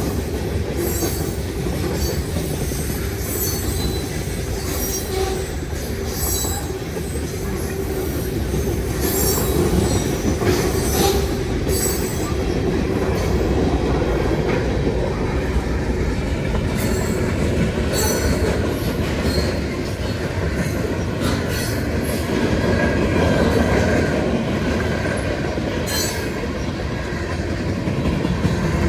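CSX freight train passing at speed: a steady heavy rumble of the cars rolling by, with repeated high wheel squeals and clicks scattered throughout.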